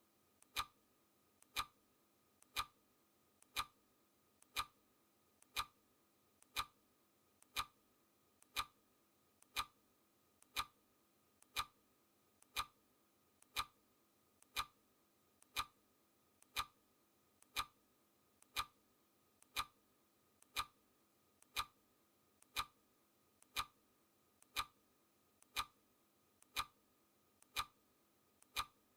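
Clock ticking sound effect: a steady tick once a second, each tick with a fainter click just before it.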